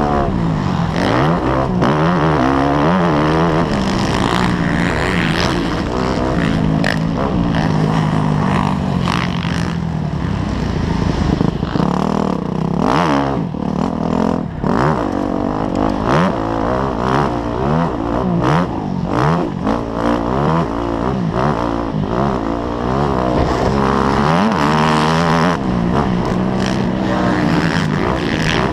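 Motocross dirt bike engine revving hard and easing off again and again as it is ridden over a rough dirt track, its pitch climbing and dropping with the throttle, heard from the rider's helmet camera with frequent knocks and gusts over the noise.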